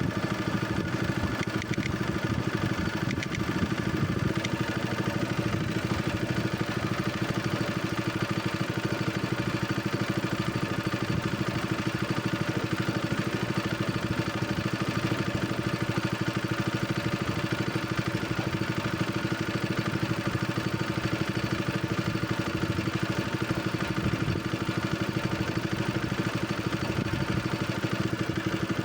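Boat engine running steadily, a continuous even drone with a fixed hum.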